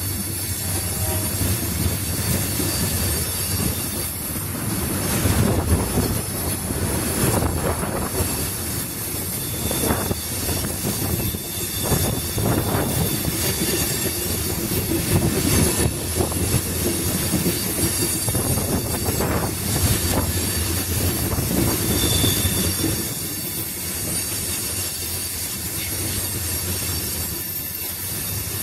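Freight train of tank cars rolling past at speed: steady rumble of steel wheels on the rails with irregular clacks over the rail joints, and a brief high wheel squeal about three-quarters of the way through.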